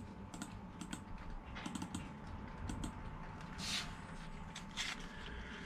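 Keys being tapped, a run of light, irregular key clicks as figures are entered to add up prices.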